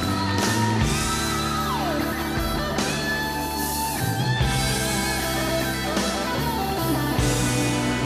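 Instrumental music: a wavering lead melody over held low notes that change every second or two.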